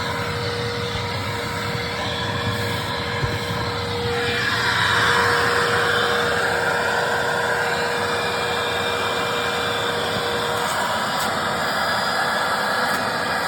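The 12-amp motor of a 2002 Hoover WindTunnel Self-Propelled Ultra upright vacuum runs steadily on hose suction through the upholstery tool, a steady whine under a rush of air. The airflow swells louder about four seconds in as the tool is worked, then settles. The hose has duct tape inside it, which the owner blames for weak performance.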